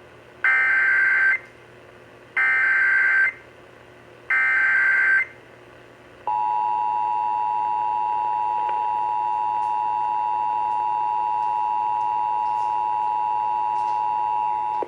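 Emergency Alert System activation on AM radio. Three buzzy bursts of SAME header data, each just under a second and about a second apart, are followed by the two-tone EAS attention signal, a steady dual tone held for about eight and a half seconds.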